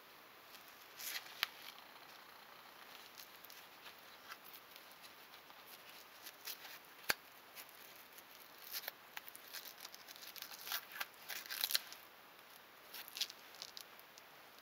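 Hook-and-loop straps of a Mueller wrist brace being pulled through their loops and pressed down: scattered scratchy crackles and rustles, most of them in a cluster a few seconds before the end, with one sharp click about seven seconds in.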